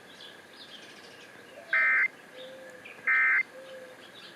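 Emergency Alert System end-of-message (EOM) data bursts: two short, loud bursts of two-tone digital data about 1.3 s apart, with a third beginning at the very end. They mark the close of the alert test.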